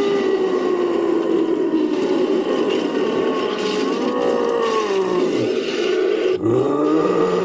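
Designed creature roar: long, low, drawn-out bellowing calls made by layering a human voice with animal roars. One call swells again about four seconds in, then breaks off, and a new call begins near the end.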